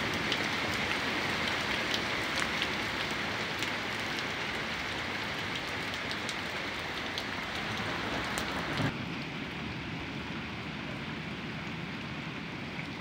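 Heavy rain pouring steadily, with scattered sharp taps of drops striking close by. About nine seconds in the sound turns duller and a little quieter.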